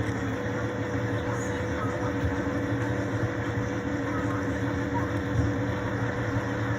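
Steady hum of a car's engine and cabin noise, heard from inside the vehicle.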